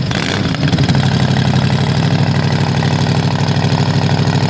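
An engine idling with a steady, even pulsing rumble.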